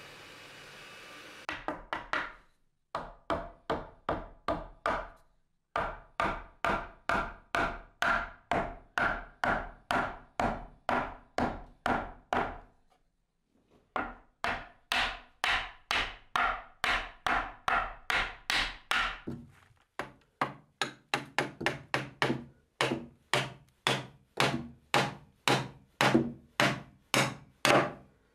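Wooden mallet striking timber, knocking mortise-and-tenon joints and wooden pegs home in a timber frame: steady blows about two a second, each with a short woody ring. They come in several runs with brief pauses and speed up slightly in the last third.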